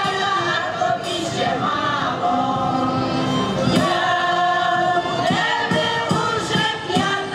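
Ukrainian village folk choir singing, mostly women's voices, holding long notes together with glides between them.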